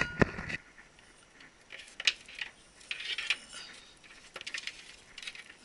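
Hands working cables and connectors inside a computer case: a sharp click at the start, then scattered light clicks, taps and rustles of plastic and cable.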